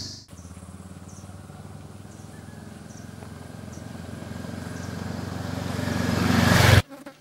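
Motorcycle riding toward the listener on a dirt road, its engine growing steadily louder as it approaches, then cut off suddenly near the end.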